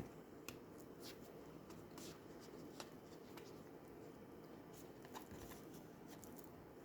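Oracle cards being handled, heard as a few faint, scattered soft clicks and rustles against near silence.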